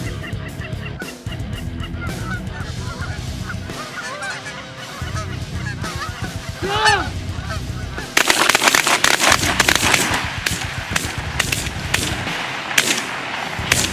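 A flock of Canada geese honking in flight, over background music with a steady low beat. From about eight seconds in comes a rapid run of sharp cracks, the hunters' shotguns firing on the flock.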